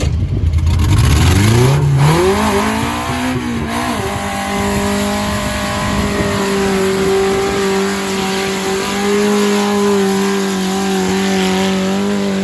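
An off-road vehicle's motor revs up over the first two seconds, then holds a steady pitch as it pulls under load, falling away near the end.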